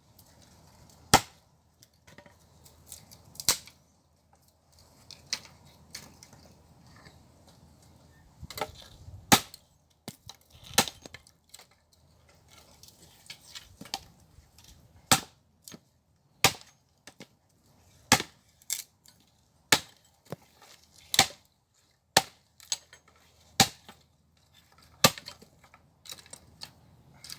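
Firewood being chopped or split by hand: a series of sharp, loud blows on wood at an uneven pace, roughly one every one to two seconds.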